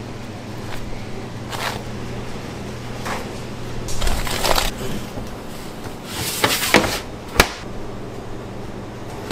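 Bakery work sounds: several short scrapes and rustles over a steady machine hum, with one sharp click a little past halfway.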